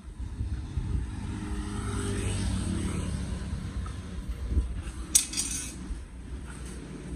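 A road vehicle passes along the road: its engine and tyres swell over a couple of seconds and fade, the engine's pitch falling as it goes by. About five seconds in there is one short, sharp clatter.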